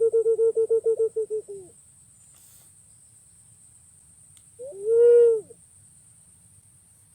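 Punai pink green pigeon calling: a rapid run of about a dozen short, hooting coos that slows and trails off about a second and a half in, then one longer coo that rises and falls about five seconds in.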